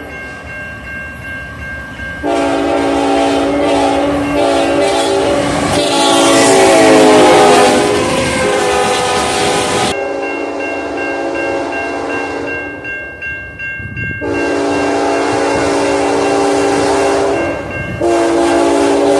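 Nathan K5HLA five-chime locomotive air horn sounding long blasts over the rumble of a passing train. The chord drops in pitch as the locomotive goes by, then sounds again twice in the later part.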